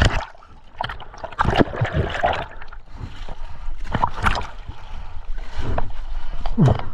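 Irregular splashing and gurgling of seawater as a diver moves in the water at the side of a kayak, the camera dipping in and out of the surface.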